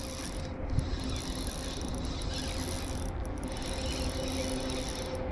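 2000-series spinning reel being cranked at a steady pace, winding in line on a light jig: an even mechanical whirr under a steady background hiss.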